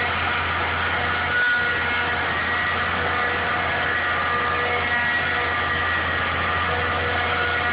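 Caterpillar 225LC excavator's 3208 V8 diesel engine running steadily.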